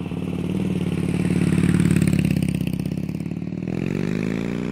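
Harley-Davidson Street Bob's air-cooled 103 cubic inch Twin Cam V-twin engine running, growing louder over the first two seconds, then rising in pitch as it revs up near the end.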